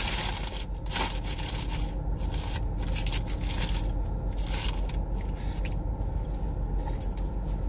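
Irregular crinkling, scraping and crunching of fast-food paper wrapping and food being handled and eaten, over a low steady hum.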